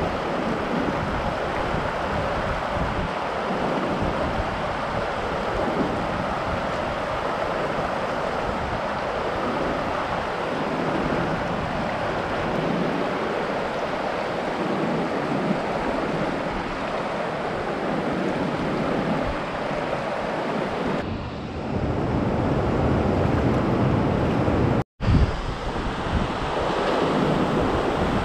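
Fast river rapids rushing over rocks: a steady, dense rush of white water, breaking off for a split second near the end.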